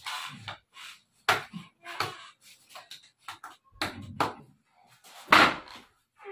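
Slippers smacking a seated person, several single sharp slaps about a second apart, the loudest about five seconds in.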